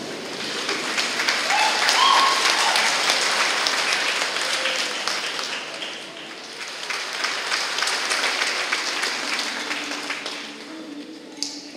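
Audience applauding, swelling up twice and dying away near the end.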